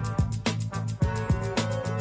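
Upbeat background music with a steady beat and repeated downward-sliding notes.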